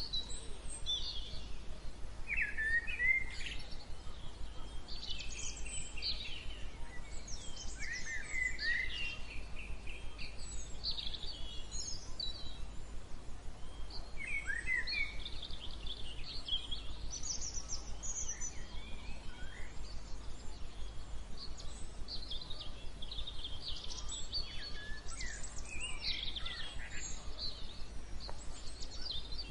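Several songbirds singing at once: overlapping chirps, short trills and rising and falling whistles, with no pause. Under them runs a steady low background rumble.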